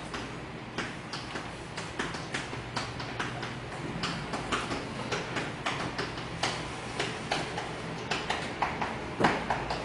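Chalk writing on a blackboard: a run of quick, irregular taps and short scrapes as the chalk strikes and strokes the board, with a sharper tap near the end. A low steady hum sits underneath.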